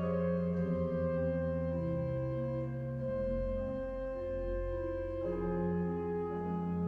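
Pipe organ playing slow, sustained chords that shift every second or two, with a deep pedal note sounding from about three seconds in to about five seconds in.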